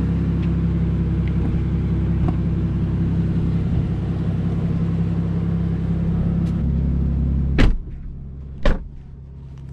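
Aston Martin DBS V12 idling steadily. Near the end come two sharp thumps as the car door is shut, after which the idle is heard quieter and muffled from inside the cabin.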